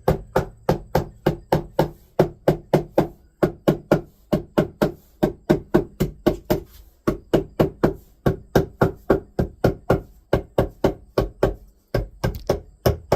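Hammer giving light, quick taps to stapled carpet on a wooden dolly frame, about three strikes a second, with brief pauses about halfway and near the end.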